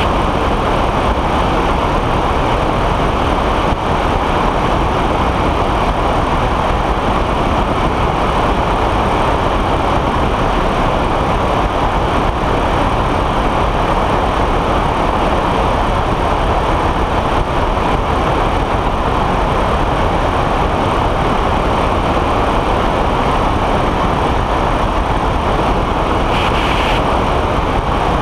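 Steady rush of wind and the drone of a weight-shift microlight trike's engine and pusher propeller in cruising flight, heard through a wing-mounted camera's microphone.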